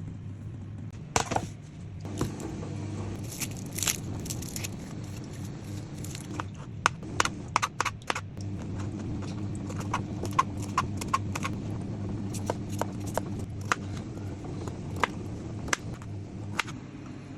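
Kitchen utensils clinking and knocking, many short sharp strikes scattered throughout, some ringing briefly, over a steady low hum.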